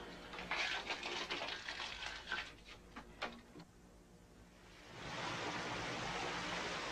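Irregular clicks and crackles, then about five seconds in a handheld shower head starts spraying: a steady hiss of running water.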